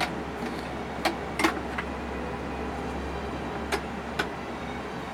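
A handful of sharp clicks and taps from packaging and the book's casing being handled, over a steady low hum.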